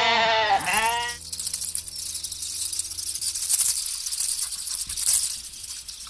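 An animal's bleating call, wavering in pitch and breaking in two, ending about a second in. It is followed by a crackling, rustling noise of many small clicks.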